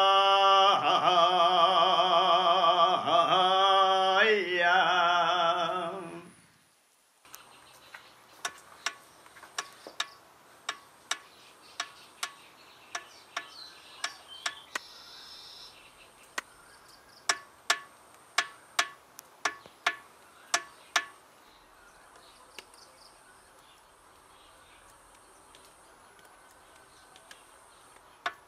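A man's voice sings a slow, chant-like traditional Assamese song, then fades out about six seconds in. After a moment of near silence, a run of sharp, evenly spaced ticks follows, about one and a half a second, over a faint hiss. The ticks stop about two-thirds of the way through and start again at the very end.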